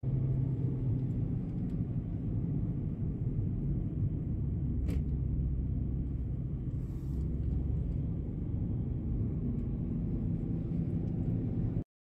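Steady low rumble of a car driving, heard from inside the cabin: engine and tyre noise, with a single sharp click about five seconds in. It cuts off suddenly just before the end.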